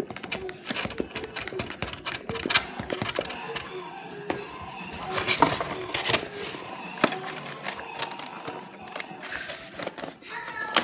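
A spoon stirring cake batter in a mixing bowl, with irregular clicks and knocks against the bowl as the batter is worked smooth.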